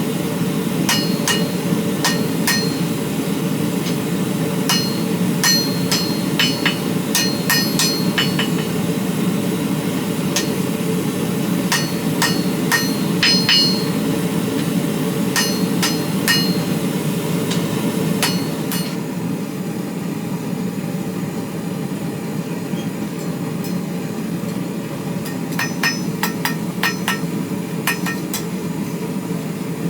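Hand-hammer blows on hot steel at an anvil, struck in quick runs with a ringing metallic note, then pausing for several seconds past the middle before resuming. A steady low rushing noise runs underneath throughout.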